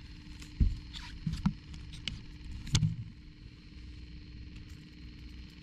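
A few sharp knocks and thumps on a boat as an angler moves about while fighting a fish, over a steady low hum.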